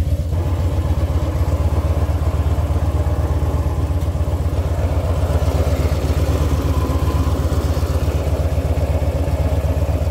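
Harley-Davidson Dyna's V-twin engine idling steadily, with a clattering abnormal noise from the primary chaincase. The owner suspects a bearing behind the primary chaincase that may need replacing, possibly caused by the oil level having dropped too low through a leak.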